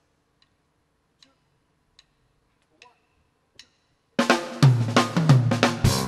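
A live band's count-in: a few soft, evenly spaced clicks about 0.8 s apart, then about four seconds in the band comes in loudly together, with drum kit hits and cymbals over bass and piano.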